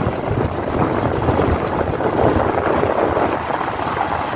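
Wind buffeting the microphone: a dense, steady rushing noise that covers everything else.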